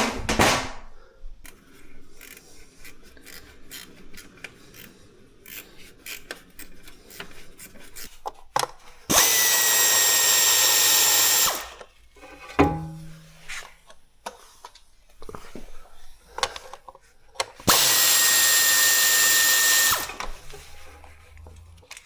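Electric power drill-driver run twice, each time for about two and a half seconds with a steady whine, undoing the fixings to remove a faulty alternator. Scattered metallic clicks and knocks of tool handling come between the two runs.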